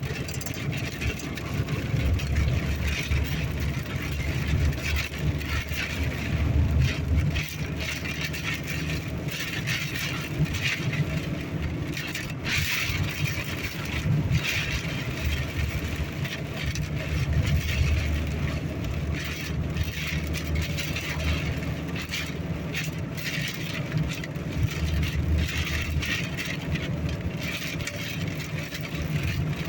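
Car cabin noise while driving slowly: a steady low rumble of engine and tyres, with a hiss of strong wind and light rattles.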